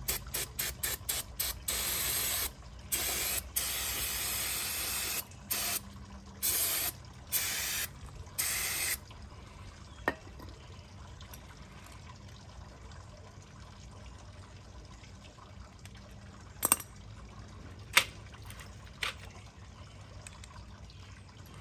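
Aerosol spray cleaner hissing in a series of bursts as a carburetor is cleaned: several quick squirts, then longer sprays of a second or two. After about nine seconds the spraying stops, leaving a few sharp clicks and taps.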